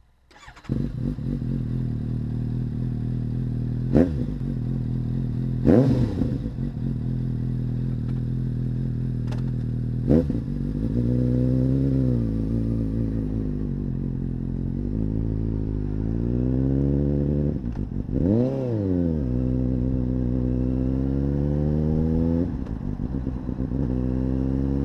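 2012 Suzuki GSR750's inline-four running through a Scorpion Red Devil aftermarket silencer. It starts up about a second in, idles with a few sharp throttle blips, and is revved up and down several times. Near the end it pulls away, its pitch climbing as the bike accelerates.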